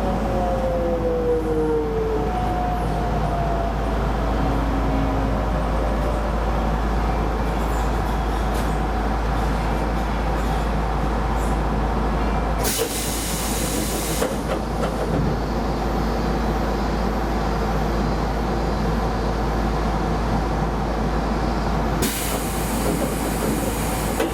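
Keisei Line electric train running on the rails with steady rolling noise, its motor whine falling in pitch over the first two seconds. Two bursts of hiss come about 13 seconds and 22 seconds in.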